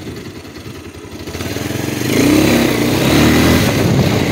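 Motorcycle engine running quietly at first, then opening up and accelerating, getting louder about a second and a half in.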